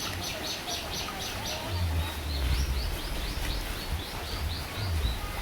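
Steady heavy rain with wind gusting, a low rumble from about two seconds in to near the end, and a small bird chirping rapidly, about five high chirps a second, throughout.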